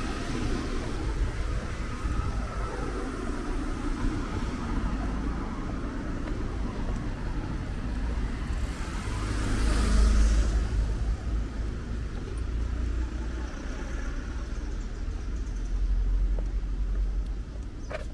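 Street traffic: a steady low rumble, with a car passing by about halfway through, swelling and fading, and another smaller swell near the end.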